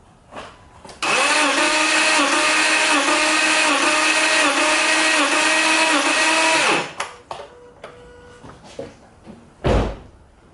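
Starter motor cranking a Subaru EZ30 flat-six for about six seconds with the spark plugs out during a compression test; its whine wavers in a regular rhythm as each cylinder comes up on compression and the engine doesn't fire. A few clicks and a heavy thump follow near the end.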